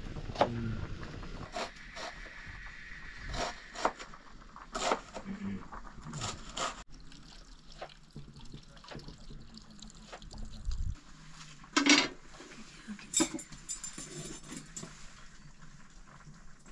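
Wood fire crackling with irregular pops and clicks over a faint steady hiss. A louder knock comes about twelve seconds in and another a second later.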